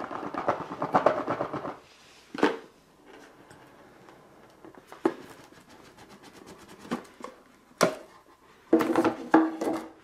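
A cardboard product box being opened by hand. It starts with a scraping slide as the outer sleeve comes off the box. Then come scattered light taps and clicks of handling, and near the end a louder rustle as the lid comes off the box.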